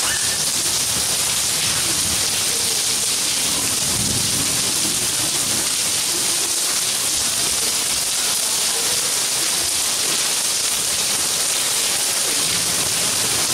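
Steady rain falling on paving, an even, unbroken hiss.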